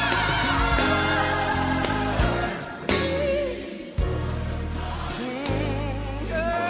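Gospel music: voices singing over sustained low instrumental notes, dipping softer for a moment about three seconds in.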